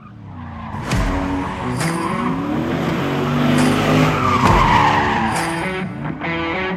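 Drift car sliding: the engine is held at high revs, its pitch stepping up and down, while the tyres squeal, loudest about four and a half seconds in.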